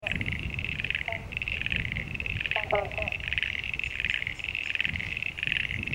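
A chorus of Tasmanian pond frogs calling in fast, high-pitched pulsed trills that come in overlapping bouts with brief gaps. A few short, lower plucked notes from an eastern banjo frog sound about a second in and again near three seconds in.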